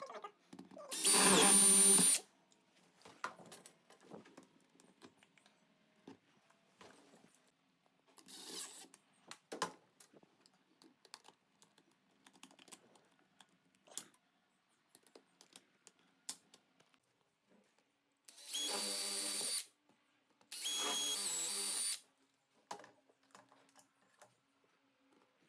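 Power drill run in short bursts: one loud burst of about a second near the start, brief ones around eight to ten seconds in, and two steady runs of about a second and a half each near the end, with small handling clicks in between.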